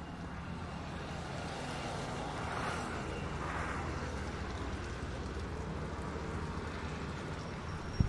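Steady outdoor background noise with a low rumble, swelling briefly about two to four seconds in.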